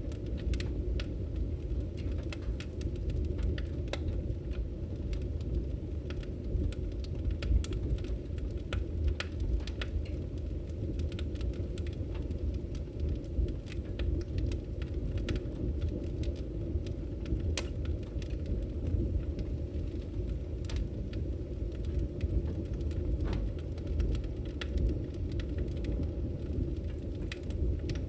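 Wood fire crackling in a fireplace: frequent, irregular sharp pops and snaps over a steady low rumble of burning.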